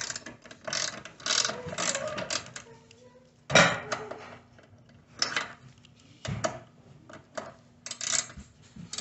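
Flex-head ratchet wrench clicking in bursts as it turns the angle-adjustment bolts on a miter saw's base, with metal-on-metal clinks and one louder clack about three and a half seconds in.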